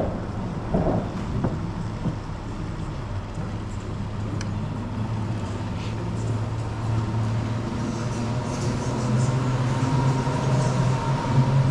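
Boat motor running steadily with a low hum, rising in pitch and getting louder in the last few seconds.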